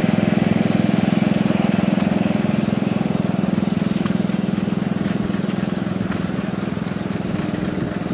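An engine running steadily at idle with a fast, even pulse, easing slightly toward the end.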